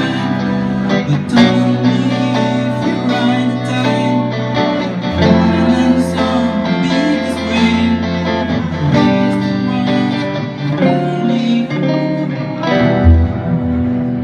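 Guitar music: plucked notes and held chords, playing without a break.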